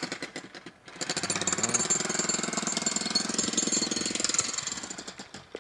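Rapid, steady mechanical hammering from construction machinery or a power tool, with a short break about a second in and fading near the end.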